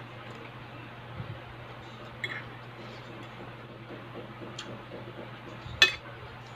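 A metal fork clinking against a plate a few times, the loudest, sharpest clink near the end, over a steady low hum.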